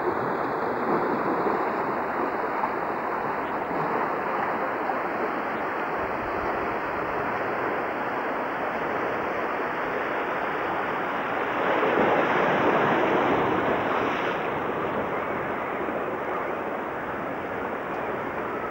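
Surf washing against a rock breakwater, with wind: a steady rush that swells louder about twelve seconds in.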